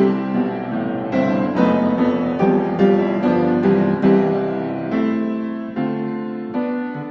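Background piano music: a steady run of gently struck notes and chords, each fading out before the next.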